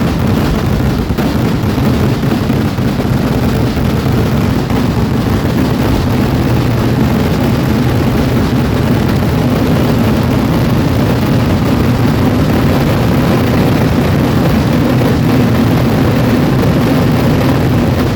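A vedikettu fireworks barrage, with explosions so densely overlapping that they merge into one loud, steady rumble.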